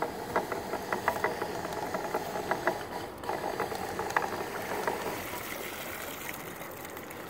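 Homemade crab pot puller hauling rope over its sheave, with irregular clicking and rattling for about the first five seconds. After that, water splashes and streams off the wire crab pot as it lifts clear of the surface.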